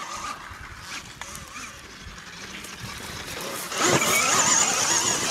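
KTM Freeride E-XC electric dirt bike riding through dry grass and brush: a high electric-motor whine over rustling and tyre noise, much louder from about four seconds in as the bike passes close.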